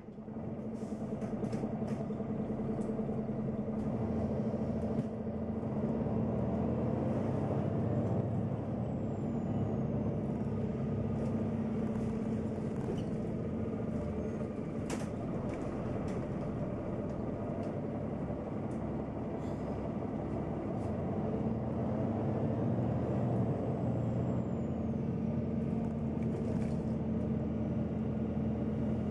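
Neoplan N 4416 Centroliner city bus heard from inside the cabin while driving: a steady engine note with road noise and scattered short clicks and rattles, one sharper click about halfway. The sound fades in at the start.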